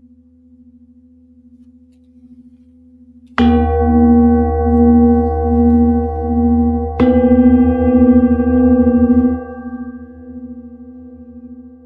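A singing bowl struck twice with a large padded mallet, about three and a half seconds apart, each strike ringing on as a rich, pulsing hum of many tones. Near the end the ringing drops back to a quieter, steady tone.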